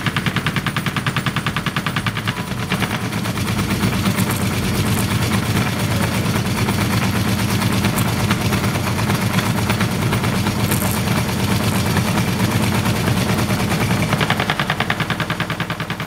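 Homemade slicer powered by a washing-machine motor, running with a rapid, even clatter of several strikes a second over a steady hum as its blade cuts a sausage into thin slices.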